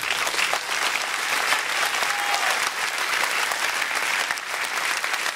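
Large audience of about a thousand applauding, a dense, steady clapping.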